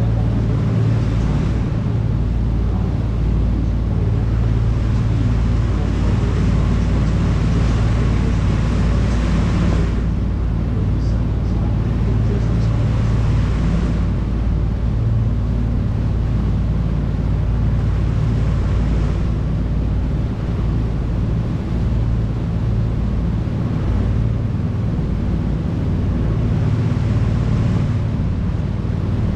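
Tour boat's engine running steadily with a low drone, under the rushing wash of the churned-up wake at the stern.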